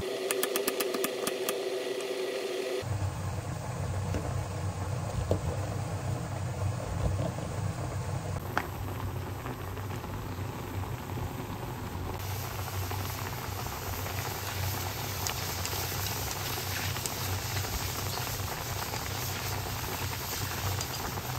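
A knife chopping garlic on a wooden cutting board in quick, even strokes for about the first three seconds. Then mushrooms sizzle as they fry in a pan and are stirred with chopsticks, over a steady low hum, and the sizzle grows brighter partway through.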